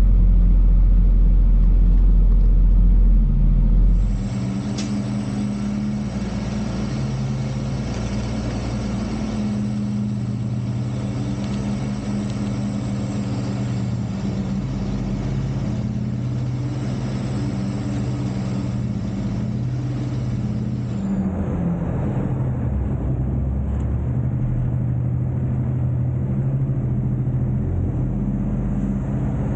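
Peterbilt 389 semi truck's diesel engine running at low speed while maneuvering, a steady low drone. A heavier rumble in the first four seconds drops away abruptly.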